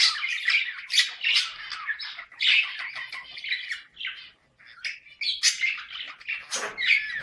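Budgerigars' mating-season chatter: a rapid, continuous warble of chirps and squawks. It drops away briefly about four seconds in, and one harsher squawk comes near the end.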